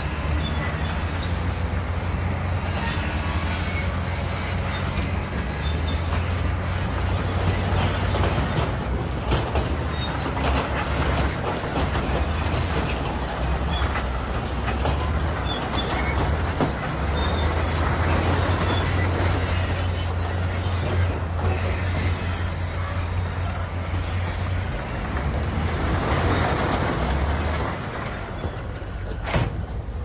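Bulldozer at work: its diesel engine drones steadily under a dense clatter of steel tracks and stone.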